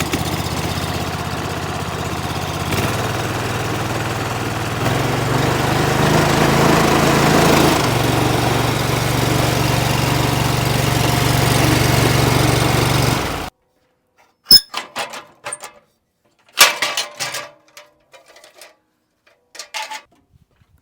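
Petrol engine of an 8 gallon-a-minute pressure washer running steadily after a restart, its speed stepping up a few times in the first eight seconds. It cuts off suddenly about thirteen seconds in, followed by a few sharp clicks and knocks.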